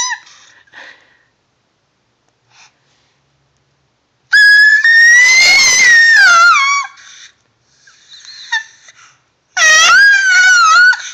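A baby's high-pitched squeals: a long, loud shriek a few seconds in and a shorter one near the end, both wavering in pitch, with faint short squeaks between.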